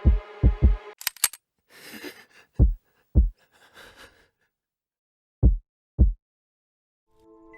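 A heartbeat sound effect, low thumps in lub-dub pairs over a held drone. The drone cuts off about a second in, leaving a few sharp clicks and short hissy noise, then the heartbeat slows to two widely spaced pairs of thumps and stops.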